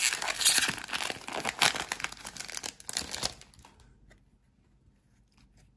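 Foil wrapper of a 2021 Select football card pack being torn open and crinkled in the hands: a dense run of crackles that stops about three and a half seconds in.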